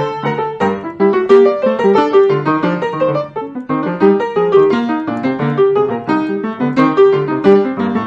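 Solo piano playing a flowing, steady run of notes, several a second, with chords in the low register.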